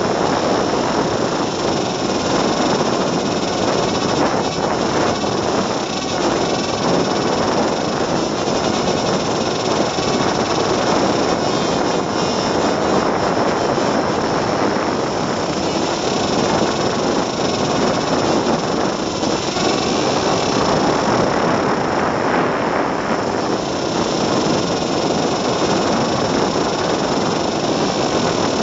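Steady whir of the PowerUp FPV paper airplane's small electric motor and propeller in flight, mixed with rushing air, heard through a tiny camera mounted on the plane.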